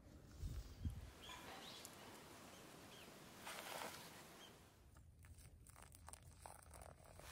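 Near silence: faint outdoor ambience, with a few faint ticks and clicks in the second half.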